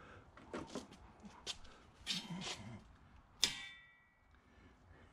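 Hand tools clanking against a bent steel mower utility-bed frame as it is worked straight: several light clicks and clanks, then one louder metal strike about three and a half seconds in that rings briefly.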